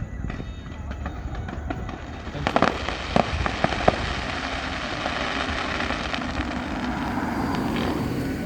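Fireworks going off: light crackling at first, then several sharp bangs about two and a half seconds in, followed by a dense, steady crackle.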